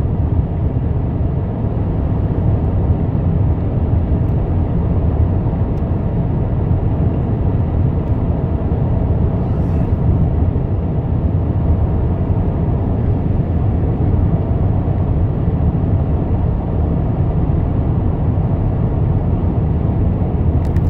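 Steady highway-cruising drone heard inside the cabin of a 2007 Acura RL at about 80 mph: road and engine noise, even and low, with a few faint clicks near the end.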